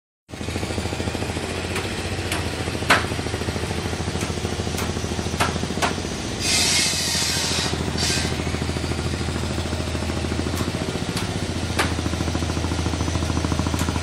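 A cargo boat's inboard engine running steadily with a fast, even thudding beat as the boat motors past. A brief rushing hiss about six seconds in, and a few sharp clicks.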